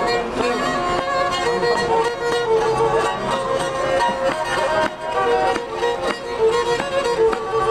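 Traditional dance music led by a bowed string instrument playing a lively melody, with regular strikes keeping the beat.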